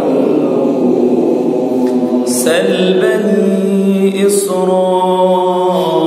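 A man's voice reciting the Qur'an melodically in Arabic, slow and continuous, with long held notes that step from one pitch to the next.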